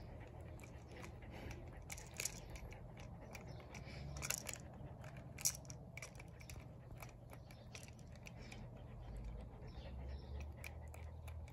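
Cavalier King Charles spaniel puppy gnawing on a hard plastic teething toy: scattered clicks and crunches of teeth on plastic, the sharpest about five and a half seconds in.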